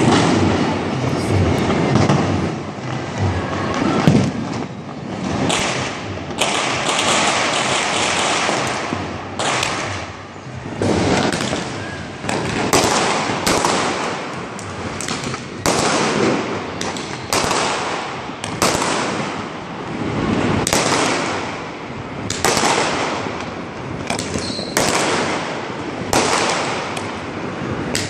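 Many firecrackers going off one after another: repeated sharp bangs over a continuous crackling, hissing din of fireworks.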